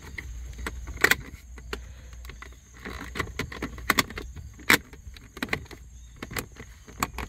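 Plastic and chrome console trim clicking and rattling as the shifter bezel of a Jeep Commander center console is worked into place by hand: a string of sharp clicks and snaps, the loudest about a second in and again past the middle.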